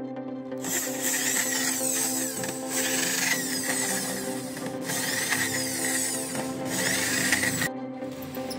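Power tool running over background music in four stretches with brief breaks, stopping shortly before the end.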